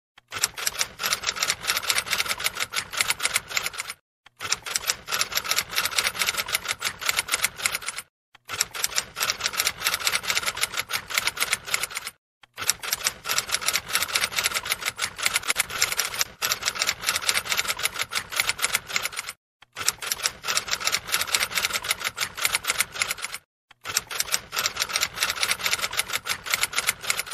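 Typewriter-style typing sound effect: rapid, dense key clicks in runs of several seconds, broken by short silent gaps, as on-screen text types out letter by letter.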